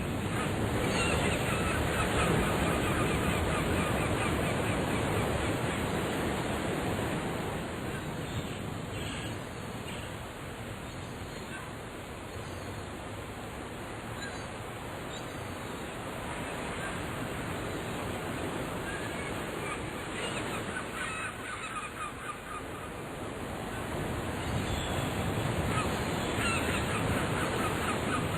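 Sound-effect recording of ocean waves washing, swelling and fading slowly, with birds honking and calling repeatedly over the surf; the calls come in clusters near the start, in the middle and near the end.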